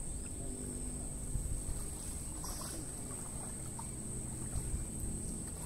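Lagoon water lapping and sloshing in the shallows as people wade through it, over a steady low rumble, with a thin, steady high-pitched whine throughout.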